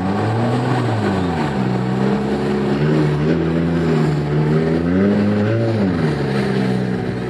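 Demolition derby car's V8 engine revving up and down: it climbs about half a second in, falls back, holds a higher pitch for a few seconds, revs up again around five seconds and drops off near six.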